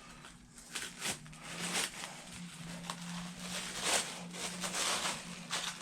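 Intermittent rustling of plastic packaging being handled, in short soft bursts, over a faint steady low hum.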